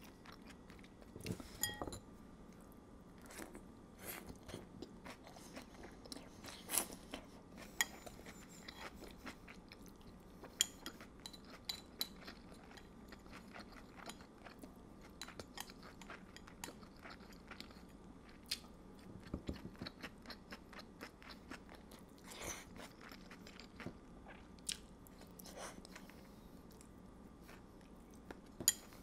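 Chewing and crunching of stir-fried chicken and vegetables, with scattered sharp clicks and taps throughout.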